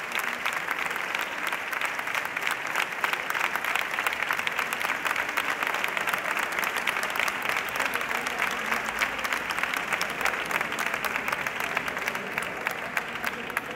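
Audience applauding, a dense steady clapping that begins to die down near the end.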